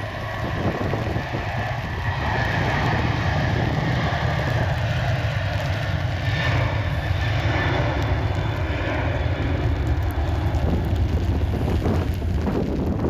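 Jet airliner engine noise, a steady low rumble.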